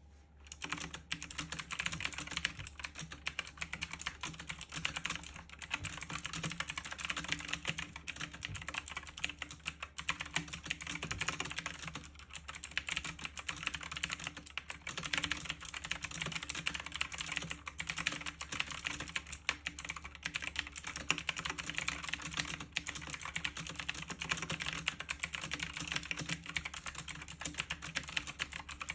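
Continuous fast typing on a computer keyboard, a dense run of key clicks.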